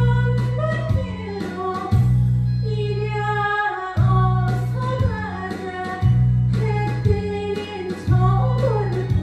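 Korean trot song: a woman singing a wavering melody over a backing track, with a strong bass note struck about once a second.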